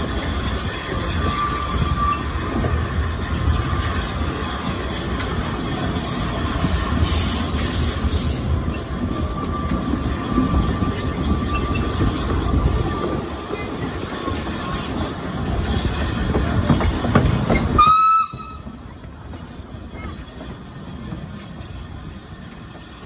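Narrow-gauge steam locomotive and train running: steady steam hiss and the rattle of wheels on rail, with a louder spell of hiss about a third of the way in. A brief whistle sounds about eighteen seconds in, and then everything drops much quieter.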